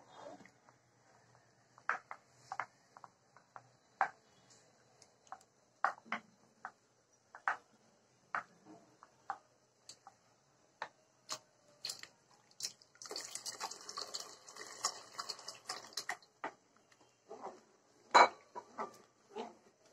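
A spoon stirring pudding mixture in a ceramic plate, with scattered clinks and knocks of the spoon against the dish. Partway through comes a few seconds of steady scraping, and the loudest knock falls near the end.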